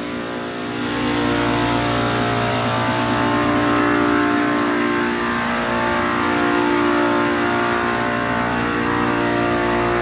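Multistack modular chiller compressors running with a steady, many-toned hum. About a second in the sound grows louder as a deeper hum joins, another compressor coming on as the chiller stages up to all four compressors running.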